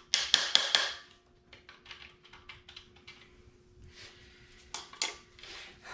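A quick run of sharp metallic clicks from a ratchet and socket on a connecting-rod cap bolt, then quieter scattered clinks and taps as the rod cap and bearing are handled, with another sharp click about five seconds in. A faint steady hum sits underneath.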